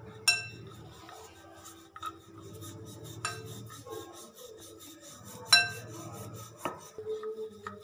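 Hands pressing and folding paratha dough on a floured stone countertop, a soft rubbing and patting. A few sharp ringing clinks cut through it, the loudest just after the start and about five and a half seconds in, with light knocks near the end, over a low steady hum.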